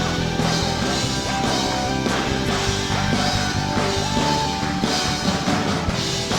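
A live band playing an instrumental intro with drum kit and guitar in a rock style, with regular drum hits under held melodic notes.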